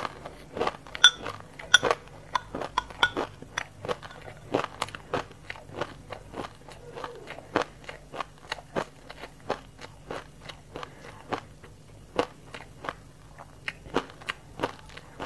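A mouthful of sesame seeds mixed with passion fruit being chewed: sharp, crackly crunches, packed most densely in the first few seconds, then coming steadily a couple of times a second.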